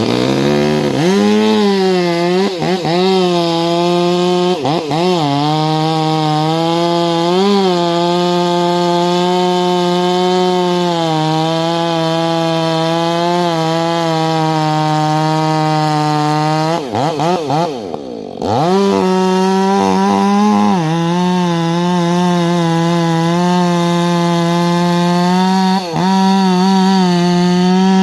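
Stihl 500i fuel-injected two-stroke chainsaw running at full throttle while bucking pine, its pitch holding high and wavering under load. About seventeen seconds in, the revs drop briefly and climb back up before it settles into the cut again.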